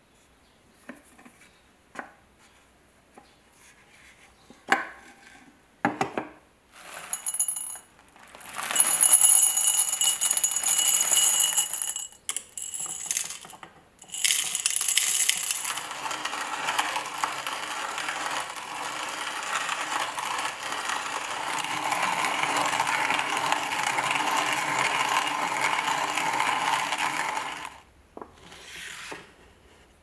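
Light handling clicks on a restored wooden-box manual coffee grinder, then coffee beans poured rattling into its steel hopper with a metallic ring about eight seconds in. From about fourteen seconds in, a steady grinding for some fourteen seconds as the hand crank is turned and the beans are milled, stopping suddenly near the end.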